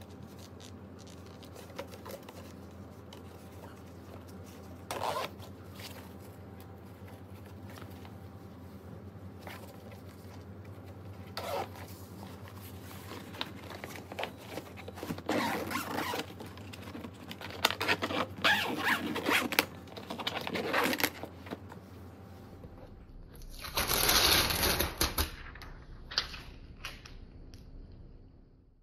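Zippers and fabric panels of an Echolac hard-shell carry-on suitcase being handled: scattered clicks and short rasping zips, growing busier in the second half, then a louder, longer rasp a few seconds before the end as the front lid is shut. A steady low hum runs underneath.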